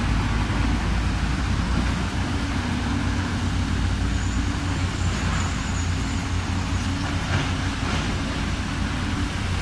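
Heavy diesel engines of a Caterpillar tracked excavator and a ten-wheel dump truck running steadily in a deep, even drone as the excavator swings its boom. A faint high whine comes in about four seconds in and lasts about two seconds.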